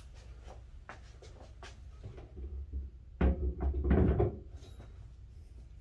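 Handling noise from a metal stand and its plastic clamps: scattered light clicks and taps, then a louder scuffing knock about three seconds in as the stand's pole is gripped and moved.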